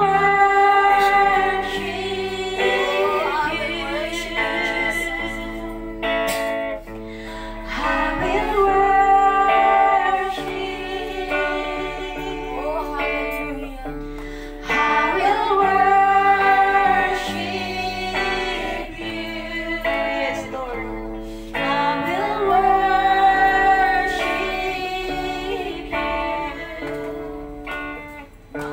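Live worship song: a woman singing lead through a microphone over guitar accompaniment, in long sung phrases that start about every seven seconds.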